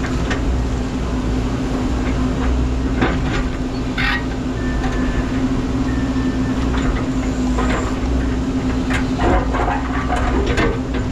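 Menzi Muck spider excavator's engine running steadily, with scattered knocks and clanks of machinery and stone.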